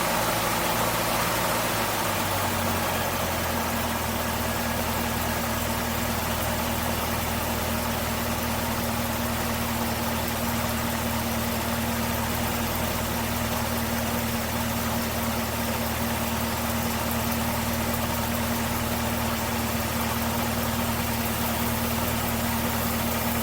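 Supercharged 6.2-litre LT4 V8 of a 2021 Camaro ZL1 1LE idling steadily, its revs settling down in the first couple of seconds after being blipped.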